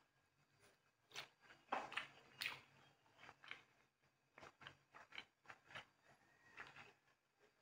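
Faint close-up eating sounds: a person chewing food, with scattered soft mouth clicks and crackles and the light sounds of fingers picking sticky rice off a plate. The loudest few come between about one and two and a half seconds in.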